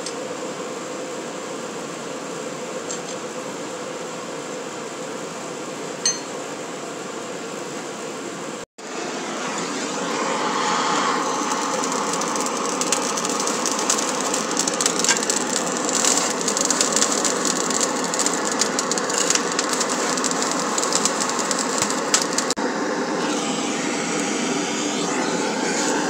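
A handheld gas torch blowing its flame steadily into a coal forge to light the fire, with crackling and popping from the coal and sparks. Before a sudden cut about nine seconds in there is only a steadier, quieter hum.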